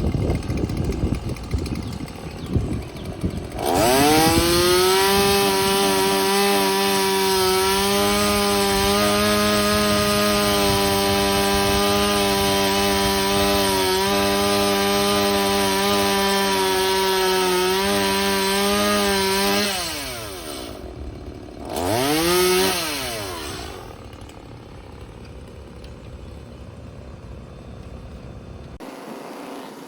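Stihl chainsaw revving up to full throttle and running steadily for about sixteen seconds, cutting wood, then dropping back. A second short burst of throttle comes a couple of seconds later before it settles lower.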